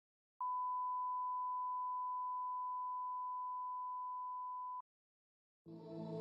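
Steady 1 kHz reference test tone, the 'bars and tone' signal that goes with colour bars, held at one pitch for about four and a half seconds with a click as it starts and stops. After a short silence, music fades in near the end.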